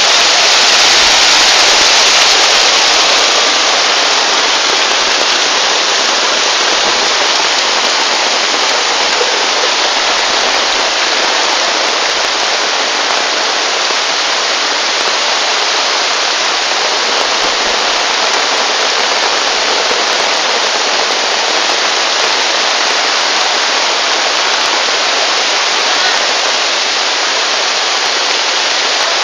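Muddy floodwater rushing in a steady, loud torrent, pouring over a concrete ledge and streaming down the street in heavy rain. A little louder in the first few seconds.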